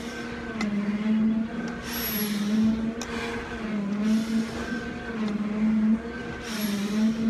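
Breaths hissing through an SCBA facepiece regulator every couple of seconds, over a steady mechanical hum that wavers slightly in pitch.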